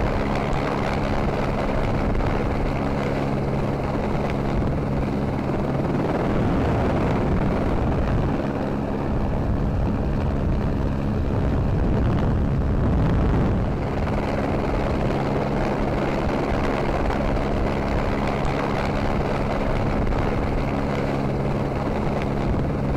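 Helicopter rotor and engine noise, a steady drone that holds, fading and returning at moments.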